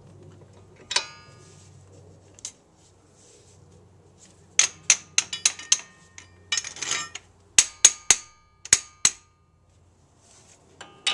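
Chrome sockets and hand tools clinking: sharp metallic clinks with a short ring, one about a second in, then a quick irregular run of them through the middle, and more near the end.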